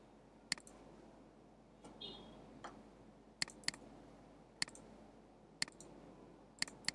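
Computer mouse buttons clicking: about seven sharp clicks, single and in quick pairs, a second or so apart.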